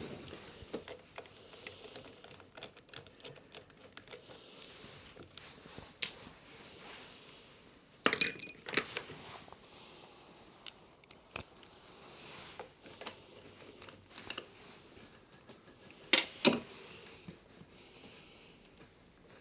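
Scattered light metallic clicks and clinks of tools and small engine parts being handled while a lawnmower engine is taken apart, with a few louder knocks about 8 and 16 seconds in.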